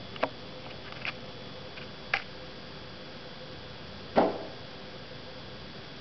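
A robin striking a window pane: three light knocks in the first couple of seconds, then a heavier thump on the glass about four seconds in. The uploader takes this for the bird fighting its own reflection.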